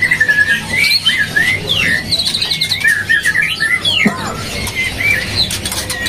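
Male white-rumped shama (murai batu) singing: a run of varied whistled phrases and slurred rising and falling notes, with a quick rapid-fire trill about two seconds in.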